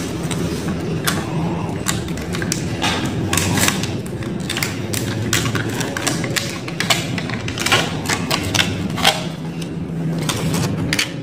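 Copper winding wire being pressed by hand into the paper-lined slots of a 55 kW motor stator, with irregular clicks, taps and paper rustles over a steady low hum.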